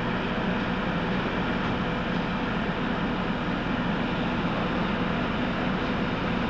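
Generators of a trailer-mounted emergency telephone switch running steadily, a continuous mechanical drone with a low hum.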